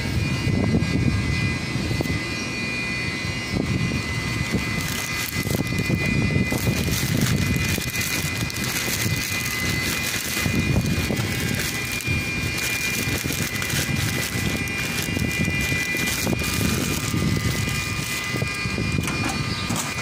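Steady machine drone with a thin, high, steady whine above it, overlaid by uneven rumbling handling noise on the phone's microphone.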